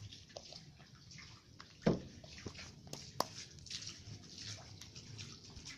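Homemade slime being squeezed and poked by hand: scattered small wet clicks and squelches, with one louder thump about two seconds in.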